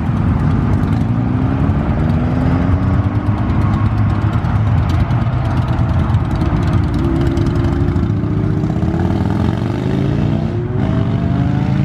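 Motorcycle engines running, then accelerating away, the engine pitch rising in several sweeps from about seven seconds in.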